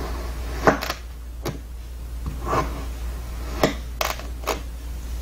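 Kitchen knife slicing down through a block of kinetic sand: soft crunching rustles as the blade sinks through the sand, and a handful of sharp clicks as the blade meets the surface beneath, under a steady low hum.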